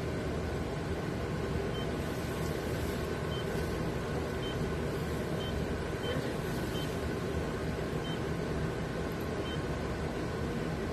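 Steady hum and hiss of running equipment, like a fan or compressor, with faint short high beeps about once a second.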